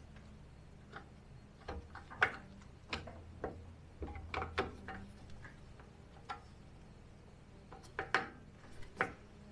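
Irregular small metallic clicks and taps, about a dozen, the strongest a little over 2 s in and around 8 s in. They come from a hex driver and fingers working the set screw and parts of an old Atlas bandsaw's lower blade guide while it is being adjusted.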